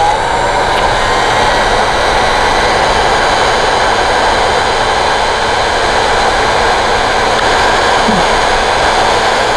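Electric heat gun blowing hot air steadily. Its fan whine rises in pitch as it spins up at the start. It is being used to shrink adhesive-lined heat-shrink tubing over a crimped battery cable terminal.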